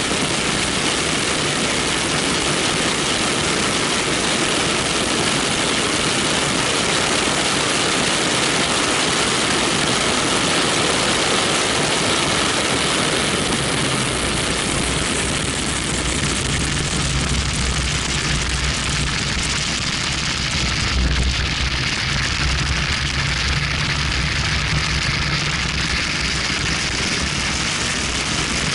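BMW 1M driven at speed on track, heard from a camera mounted outside on the car's front left: steady wind noise over the microphone with the engine and tyres underneath. About halfway through the high rush eases and a deeper low engine note comes up.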